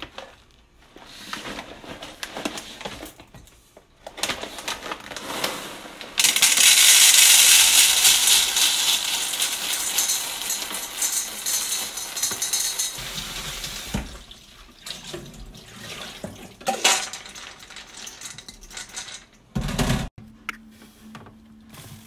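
Dried chickpeas poured from a plastic bag into a stainless steel bowl: a dense rattling pour of many small hard beans hitting metal, lasting about seven seconds. Quieter plastic-bag rustling comes before it, and scattered clinks come after.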